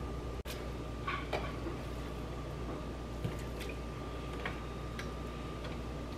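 Soft squishes and a few light clicks as pieces of cooked chicken breast are picked by hand from a glass dish and dropped into broth in an electric pressure cooker, over a steady faint hum.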